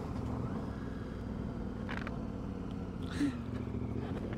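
KTM 1090 Adventure R's V-twin engine running steadily at low road speed on a gravel road, with two brief clicks about two and three seconds in.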